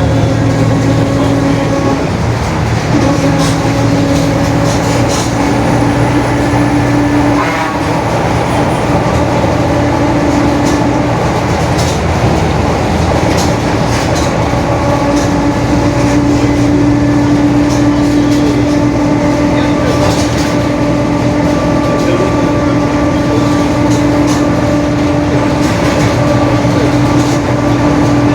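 Mercedes-Benz OF-1721 BlueTec 5 city bus under way, its four-cylinder diesel running with the rear differential growling: a steady whine over the engine that fades for a few seconds about halfway through, then comes back.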